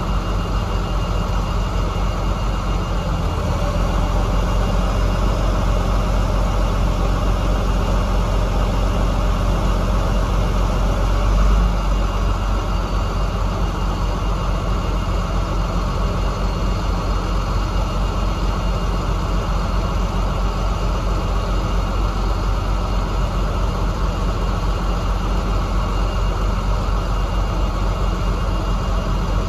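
KamAZ truck's diesel engine running steadily, with a brief louder surge about eleven seconds in.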